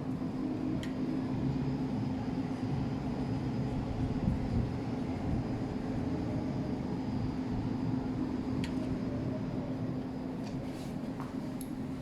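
A steady low mechanical hum with a constant pitch and a rumble beneath it, and a few faint clicks.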